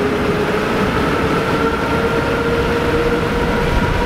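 Electric pontoon boat motor running under way: a steady whine that creeps slightly up in pitch, over a rumble of wind and water.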